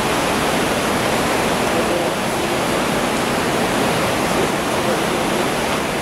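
Steady rush of a fast-flowing mountain river.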